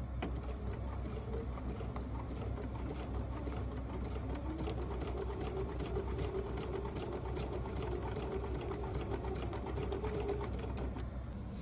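Sewing machine stitching at a steady speed, the needle ticking rapidly over a low motor hum; a steady whine joins about four seconds in, and the machine stops just before the end.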